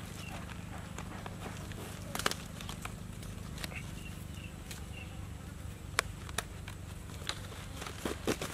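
Scattered clicks and rustles of hands wrapping a thin cord around a whole jackfruit on banana leaves, the sharpest clicks about two seconds in, at six seconds and near the end, over a steady low hum.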